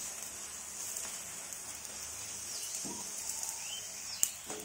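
Paratha frying in oil on a non-stick tawa, a steady sizzle. A sharp tap near the end as the paratha is flipped onto the pan.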